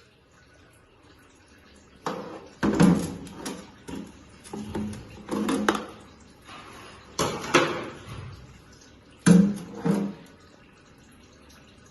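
Metal parts of an automatic transmission clanking and clattering in four short bursts as they are handled during disassembly.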